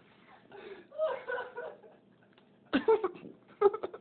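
People's voices with chuckling and snickering laughter, then two sudden, loud short vocal outbursts near the end.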